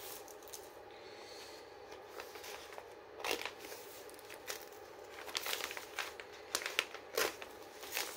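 Sellotape on a parcel being picked at and torn, with the packaging crinkling. Faint at first, then a run of short, sharp crackles from about three seconds in.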